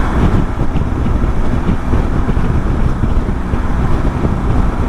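Heavy wind buffeting on the microphone from a BMW R1200 GS motorcycle riding at road speed, with the bike's running and road noise underneath.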